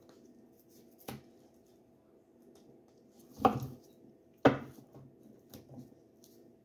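A tarot deck being shuffled by hand: a sharp click about a second in, then two louder thumps about a second apart and a few soft ticks of cards against hands and table.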